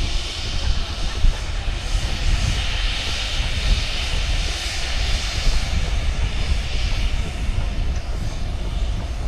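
Turbofan jet engines of a Boeing C-40 Clipper, a military Boeing 737-700, running with a steady deep rumble and a hissing roar that swells a little in the middle.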